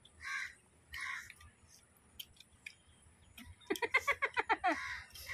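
Two short, noisy eating sounds from people eating with their hands, then a woman laughing in quick bursts for about a second near the end.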